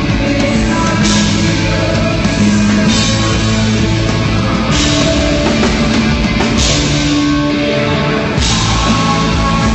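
Live rock band playing a song at full volume during a sound check: electric guitars, bass and drums, with cymbal crashes every couple of seconds.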